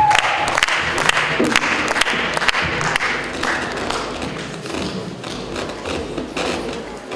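A held musical note cuts off just after the start. Scattered thumps and taps follow over a hiss of hall crowd noise that slowly dies away.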